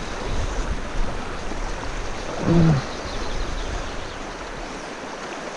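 Steady rush of river current flowing around a wading angler, with one short vocal sound from a person about halfway through.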